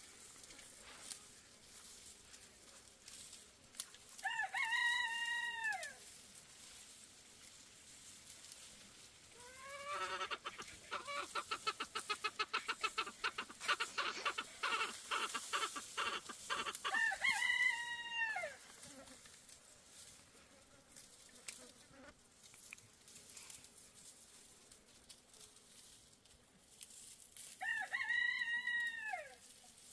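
A rooster crows three times, each crow about two seconds long, rising and then falling in pitch. Between the first and second crows, a rapid pulsing run of calls goes on for about six seconds.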